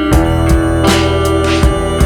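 Background music: guitar over a bass line with a steady beat.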